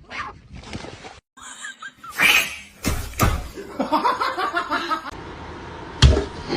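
A person laughing in short bursts, with a few sharp thumps.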